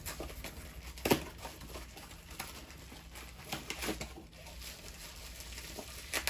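Packaging being opened by hand: scattered rustles and light knocks, the sharpest about a second in and another at the very end.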